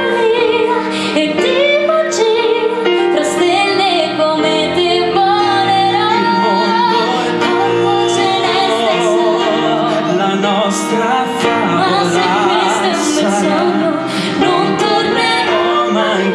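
Live acoustic music: a voice singing long notes with vibrato over sustained instrumental accompaniment.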